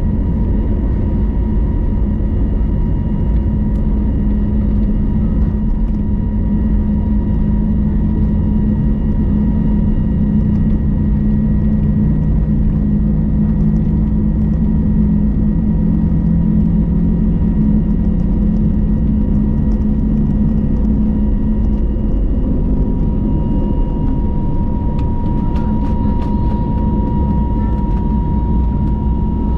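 Airbus A321neo cabin noise from a window seat during takeoff and initial climb: the engines run hard with a loud, steady drone and hum, under a thin whine that grows louder in the last few seconds.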